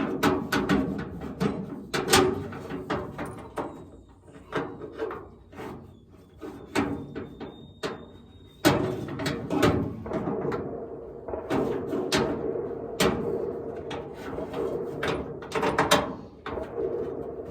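Irregular knocks, clicks and metal clanks from tightening the toolbox's mounting hardware in a pickup bed, with a quieter stretch between about four and eight seconds in. Music plays underneath.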